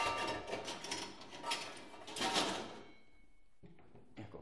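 Metal kitchen utensils clattering and jangling as a kitchen drawer is opened and rummaged through for a skimmer, dying down about three seconds in.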